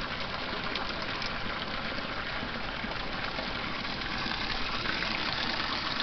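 Steam venting from hot-spring fumaroles, making a steady, unbroken rushing hiss.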